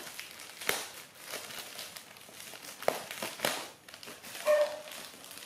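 Plastic packaging of a bag of individually wrapped cake rolls crinkling as it is handled, in several separate crackles. A brief voice sounds near the end.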